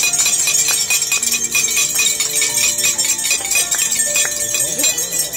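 Many banquet guests tapping drinking glasses at once, a rapid continuous clinking that greets the bridal couple's entrance, over background music.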